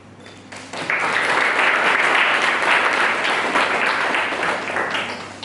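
Audience applauding. The clapping breaks out about a second in and dies away near the end.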